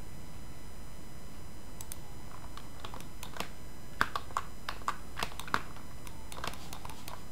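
Clicks of a computer keyboard and mouse: a few scattered clicks, then a quick run of about seven between about four and five and a half seconds in, over steady background noise.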